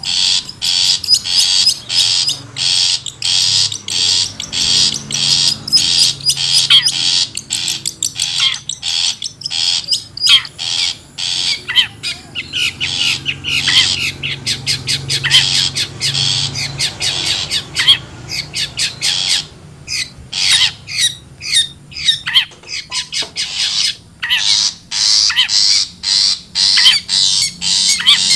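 Long-tailed shrike (cendet) giving a rapid string of short, harsh rasping calls, several a second, thinning out for a few seconds past the middle before picking up again.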